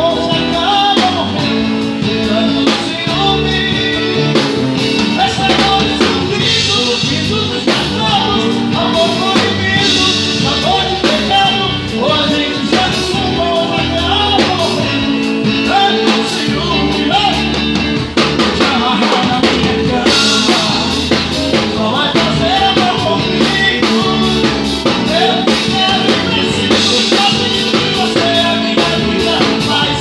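Live band playing amplified music: a drum kit keeping a steady beat and electric guitar, with singing over it.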